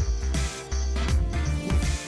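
Background electronic music with a heavy, pulsing bass beat and a slow gliding synth line.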